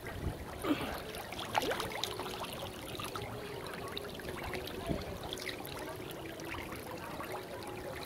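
Water trickling and splashing where a dense shoal of fish is churning at the surface, over a faint steady hum.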